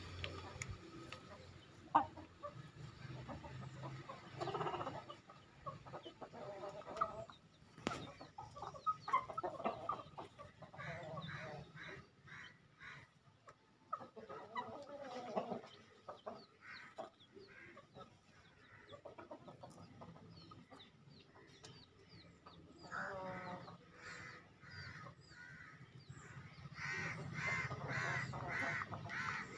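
Roosters clucking in short bursts again and again, loudest near the end, with a sharp click about eight seconds in.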